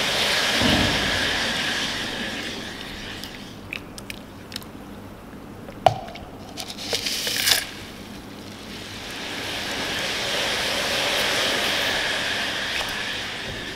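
Silicone spatula stirring and scraping a liquid around a plastic measuring jug: a gritty swishing that swells, fades and swells again, with a few sharp clicks of the spatula against the jug in the middle.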